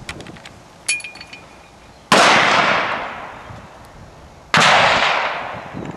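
Two loud rifle shots about two and a half seconds apart, each starting suddenly and fading away over a second or two in a long echoing tail. Before them, about a second in, a few light metallic clicks from the Snider rifle's hinged breechblock being handled.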